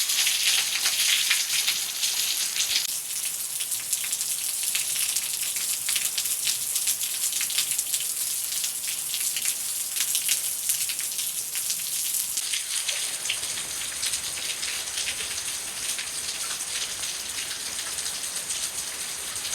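Rain falling steadily: a dense hiss of many drops pattering and splashing.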